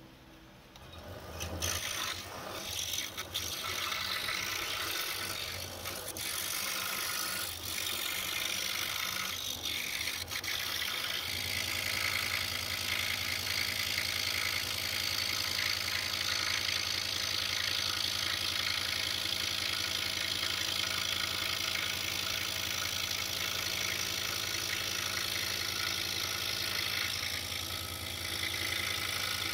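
DEWALT scroll saw starting up about a second and a half in, then running as its blade strokes up and down, cutting out the inside of a sign letter through a drilled starter hole. The sound settles into a steady rhythm about eleven seconds in.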